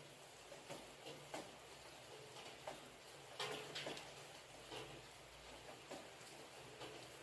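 Light rain: sparse raindrops falling and pattering at irregular intervals over a faint hiss, with a short cluster of louder drops about halfway through.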